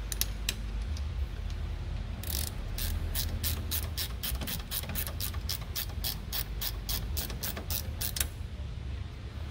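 Ratcheting wrench clicking as it backs out a brake caliper bolt: a few clicks, then a steady run of about four clicks a second from about two seconds in until just past eight seconds. A low steady hum runs underneath.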